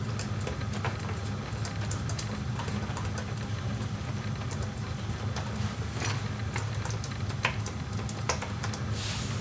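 Light, irregular metal clicks and taps of an 8mm wrench working a screw loose on a motorcycle's countershaft sprocket cover, over a steady low hum.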